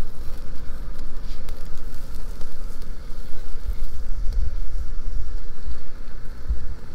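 Wind rumbling and buffeting the microphone over a crackling wood campfire, with a few faint pops from the fire.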